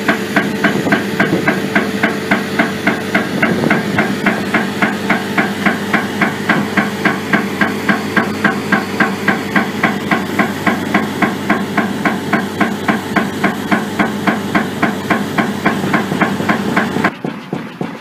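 Pneumatic pipe-bursting hammer pounding underground in an even, rapid beat of about three blows a second, over the steady hum of the job's engine-driven equipment. Near the end the sound drops abruptly in level, the same beat carrying on quieter.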